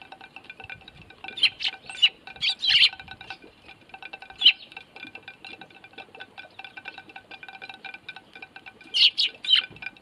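Eurasian tree sparrows pecking seed off a plate, a rapid stream of ringing little taps, with a few sharp chirps about a second and a half in, again halfway through, and near the end.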